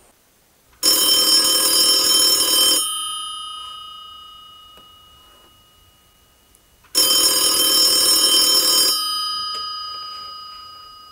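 Old-style desk telephone bell ringing twice, each ring about two seconds long, with the bell tones fading out slowly after each ring.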